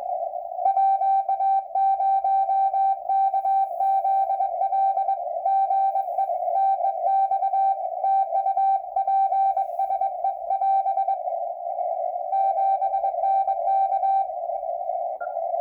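Morse code (CW) from an amateur radio: a single steady tone keyed in dots and dashes over a constant narrow band of receiver hiss. It sends for about ten seconds, pauses about a second, then sends a short run of code before stopping.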